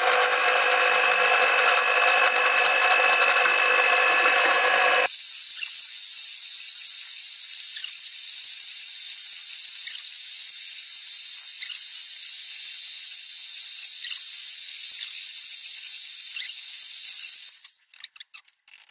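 Electric hand mixer running steadily with its beaters in a pot of liquid jelly, whipping it frothy. About five seconds in, the sound abruptly thins to a high whine. It stops near the end, followed by a few short clicks.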